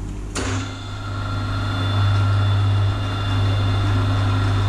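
A milling machine starts up about half a second in, with a sharp click, and then runs with a steady hum and a high whine. The sound cuts off abruptly near the end.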